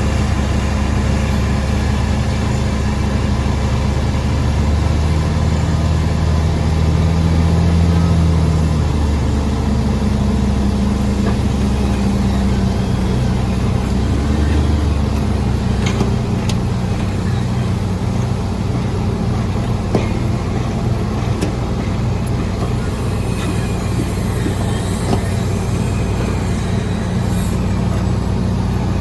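Heavy diesel engines of an excavator and a mobile crane running steadily. The revs rise and the sound grows louder about five seconds in, then settle back a few seconds later. A few sharp clicks come later on.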